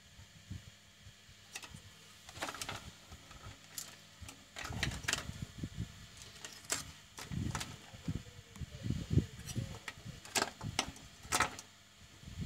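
Handling noise from a modem circuit board and its plastic case being picked up and turned over: scattered sharp clicks and knocks with low rumbling bumps in between.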